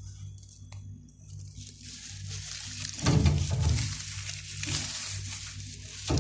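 Crinkling and rustling of packaged items being handled, with a heavier thump about three seconds in and a sharp click near the end.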